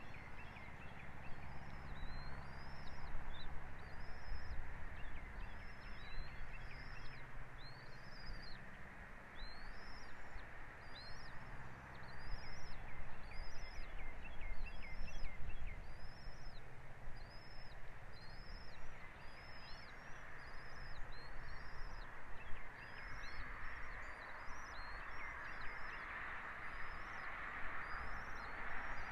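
A bird calling repeatedly, one high, thin, arched note about once a second, over a steady rush of wind-like noise that swells near the end.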